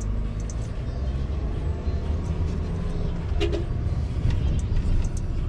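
Engine and road noise heard inside a moving car: a steady low rumble.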